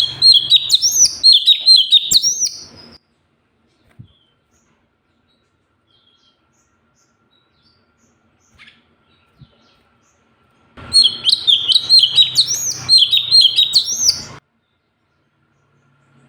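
Cucak cungkok bird singing in two loud bursts of rapid, high chirping trills, each about three seconds long, with a long silent pause between them.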